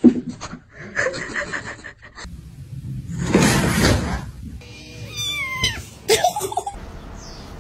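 Cats and kittens meowing in short cries, with a high falling meow about five seconds in. A short noisy rush of sound a little past three seconds.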